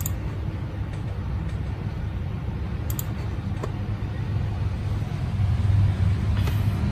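Steady low background rumble that swells slightly near the end, with a couple of faint clicks about halfway through.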